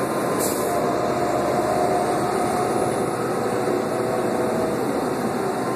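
Inside a 2001 New Flyer C40LF transit bus under way: its Doosan CNG engine running steadily, mixed with road and cabin noise and a faint steady whine.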